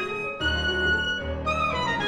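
Clarinet and piano playing a loud passage: the clarinet holds a high note, then falls in a quick downward run about a second and a half in, over low piano chords.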